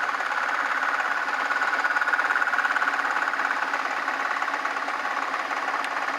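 Small Craftsman 109 metal lathe running steadily under power, a rapid even mechanical clatter from its motor and drive while it turns the work.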